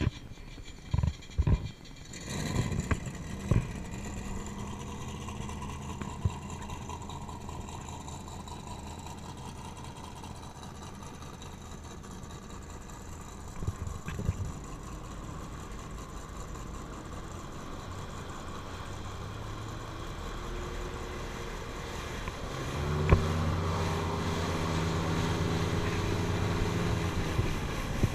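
Open-exhaust speedboat engine starting up after a few knocks and running off across the water, its sound slowly falling in pitch as it pulls away. About 23 seconds in, a second boat engine close by comes in loud and runs steadily.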